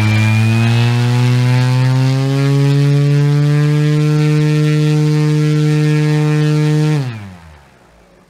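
Big 37x13 propeller on a Joby Motors JM1-3TY electric motor under a Lebowski FOC controller, running with a loud, steady pitched hum that rises a little in pitch over the first few seconds and then holds. About seven seconds in the drive cuts out and the prop spins down quickly, falling in pitch: the controller faulting out of FOC mode.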